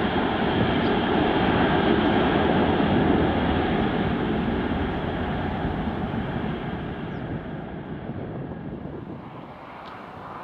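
Jet noise from a Boeing 747-400F cargo jet's four turbofan engines: a loud, steady rush that is strongest for the first few seconds, then fades away gradually as the aircraft moves off.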